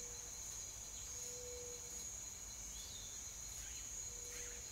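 Quiet room tone: a steady high-pitched whine over a low hum, with a faint short mid-pitched tone sounding a few times.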